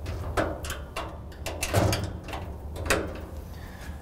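Hinge pins of a steel equipment-cabinet door being pried down with a flat-blade screwdriver while the door is held: a series of sharp metallic clicks and knocks at uneven intervals, the loudest about two seconds in and near three seconds.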